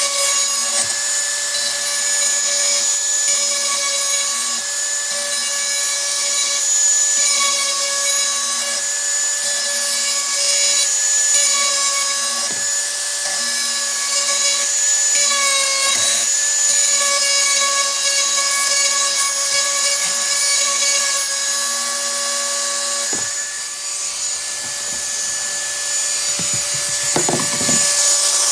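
Handheld electric grinder running with a steady high whine while it is worked against a steel garden tool's edge to sharpen it. A lower grinding note comes and goes in regular strokes about every second and a half, then stops near the end while the motor keeps running.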